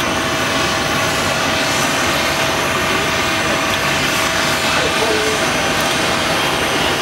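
Jet airliner's twin engines at takeoff power on its takeoff roll down a wet runway: a steady, loud rushing noise with a steady whine running through it, mixed with the hiss of tyre spray.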